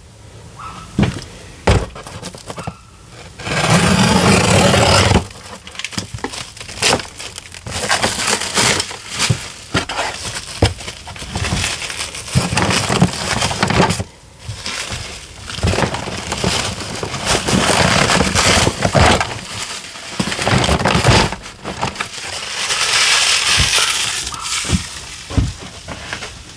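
Clear plastic stretch wrap crinkling, crackling and tearing as it is pulled off a cardboard box, in a long run of rustles and sharp crackles.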